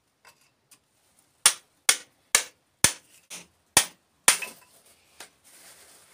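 A hand hammer striking rock at the bottom of a trench, about seven sharp blows at roughly two a second, starting about a second and a half in, as stone is broken up during excavation. The blows stop near the middle and a faint rustle of soil and stones being handled follows.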